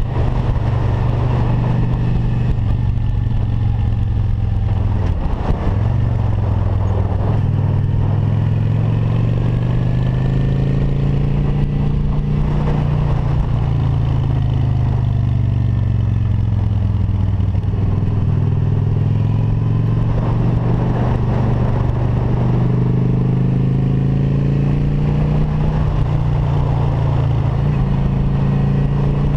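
Motorcycle engine running while riding, its pitch rising and falling with the throttle, with a brief drop and pickup about five seconds in, as at a gear change.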